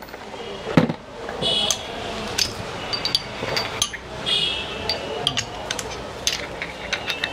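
Steel socket-wrench extension bar and socket clinking and clicking as the pieces are fitted together to lengthen the bar, with two short metallic rings about one and a half and four seconds in.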